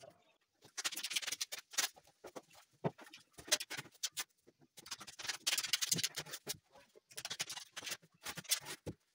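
Irregular scraping, rustling and light knocks from cabinet boards and hand tools being handled on a countertop, in short uneven bursts with brief pauses between them.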